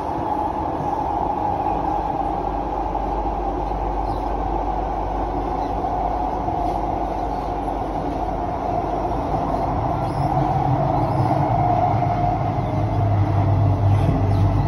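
Running noise inside a Kawasaki/CSR Qingdao Sifang C151A electric multiple unit car on the move: a steady rumble and hum that grows louder and deeper about ten seconds in.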